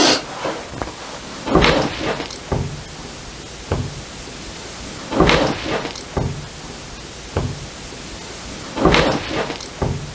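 A series of irregular knocks, bumps and rattles, like a door or wooden fittings being knocked or moved, a few seconds apart. The louder ones come about a second and a half in, about five seconds in, and near the end, each followed by smaller taps over a steady hiss.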